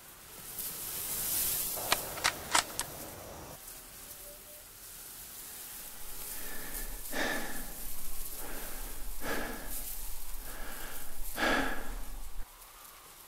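War-film gunfire sound effects: a quick run of about four sharp shots about two seconds in, then from the middle a series of duller, heavier bangs over a low rumble that cuts off suddenly near the end.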